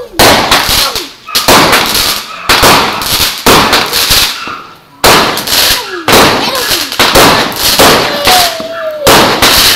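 Fireworks going off overhead: about nine loud bangs, roughly one a second, each fading into a crackle of sparks.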